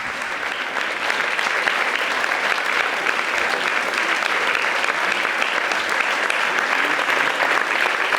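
Audience applauding: a dense patter of many hands clapping that swells about a second in and then holds steady.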